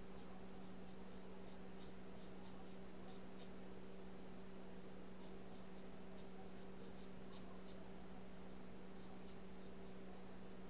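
Paintbrush laying gouache onto paper in short, irregular strokes and dabs, about three a second, over a steady low hum.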